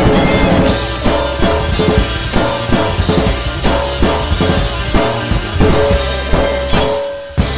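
Drum kit played along to a rock backing track: snare, bass drum and cymbal hits over held keyboard-like notes and bass, with a short break near the end before the hits resume. The kit's heads and cymbals are damped with tape.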